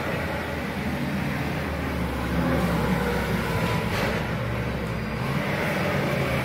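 Forklift engine running steadily at a low, even pitch.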